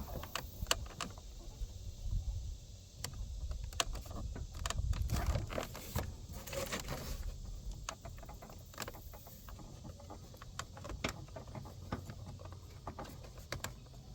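Hands working at the door handle rod's retaining clip behind a pulled-out car door panel: scattered small clicks, taps and light rattles of plastic and metal parts being handled.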